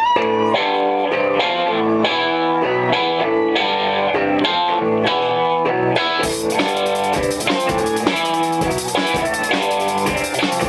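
Live rock band starting a song: a repeating electric guitar riff over a drum beat, with the cymbals coming in about six seconds in as the full band kicks in.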